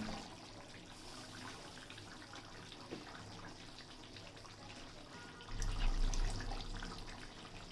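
Chicken and potato curry simmering in a pot with faint bubbling. A low rumble comes in about five and a half seconds in.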